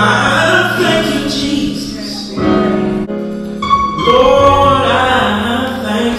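Gospel song playing: singing over instrumental accompaniment.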